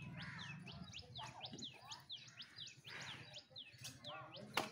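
Small birds chirping: a high, falling chirp repeated about three times a second, with other shorter bird calls mixed in. A single sharp knock sounds near the end.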